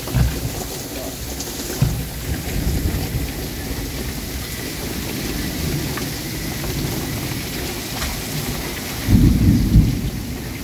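Heavy rain pouring down in a thunderstorm, a steady hiss, with low rumbles of thunder, the loudest about nine seconds in.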